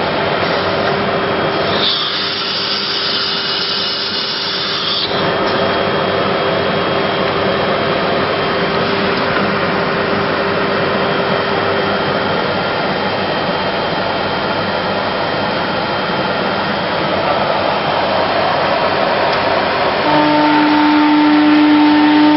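An ATC CNC router running, its spindle cutting wood with a steady noise. A new steady whine joins in about two seconds before the end.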